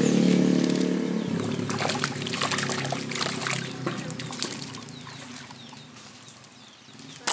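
A hooked fish thrashing at the pond surface as it is reeled in, a burst of irregular splashes that dies down over a few seconds. A steady engine hum fades out about a second in.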